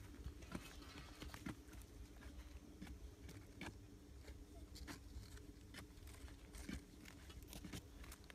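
Faint, irregular crunches and scrapes of dry, clumpy soil being dug out with an iron digging bar and a small hoe, over a low steady rumble.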